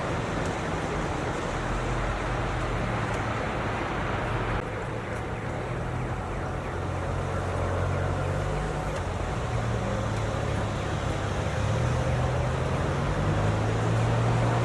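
Steady snowstorm ambience: continuous rushing wind noise over a low steady hum, its character shifting slightly about four and a half seconds in.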